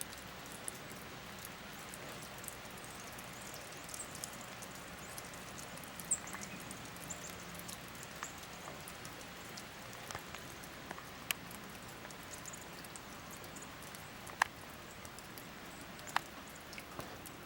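Falling snow pattering and ticking, scattered irregular small ticks over a steady hiss, a few of them sharper.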